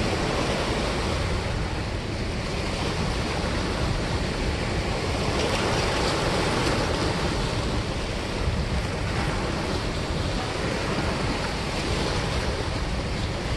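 Steady rush of water churning through a dam spillway.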